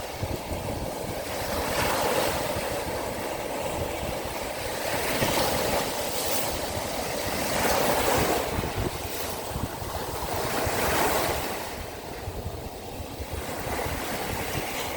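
Sea of Azov waves breaking and washing on the shore, surging about four times and easing off in the last few seconds, with wind buffeting the microphone.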